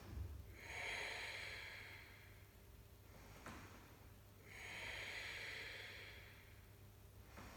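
A person breathing slowly and audibly: two long breaths of about two seconds each, with a pause between them, during a held yoga pose.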